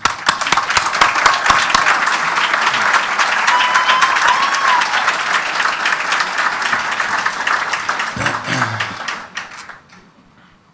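Audience applauding: a dense clatter of many hands clapping that dies away about nine seconds in. A brief high tone rises and falls over the clapping about four seconds in.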